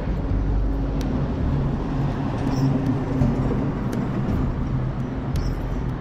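Heavy vehicle engine running with a steady low drone.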